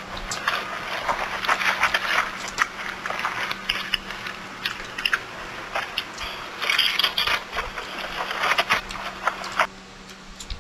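Close-miked chewing and lip-smacking of chicken, a dense run of wet clicks and crunches that stops suddenly near the end.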